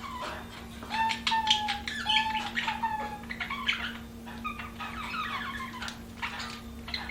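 Budgerigars chattering: a fast, varied run of chirps, squawks and warbled notes, with a few longer held notes about a second in. A steady low hum runs underneath.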